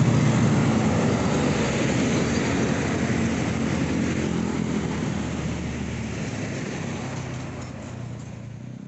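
Street traffic: motorbikes and a truck running past with a steady engine rumble, fading out gradually toward the end.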